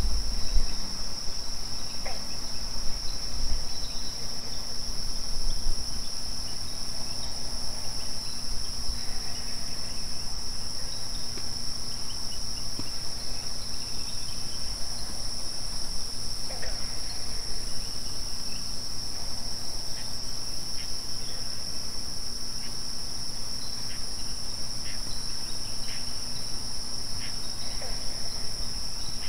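Steady chorus of crickets trilling, a continuous high ringing that never breaks, with a low rumble underneath and a few faint clicks.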